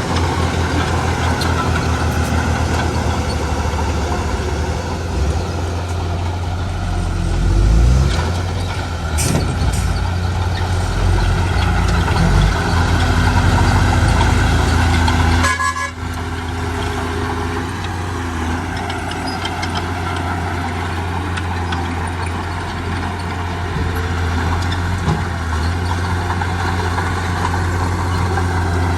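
Heavy diesel construction machinery running steadily, with a deep engine hum. The sound changes abruptly a little over halfway through.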